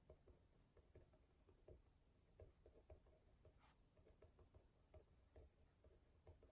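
Faint irregular scratching and ticking of writing on paper, with one sharper click about three and a half seconds in.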